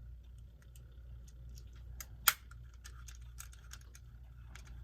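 Small clicks and taps of a quartz clock movement being handled as its setting stem is fitted and turned to set the time, with one sharper click a little over two seconds in.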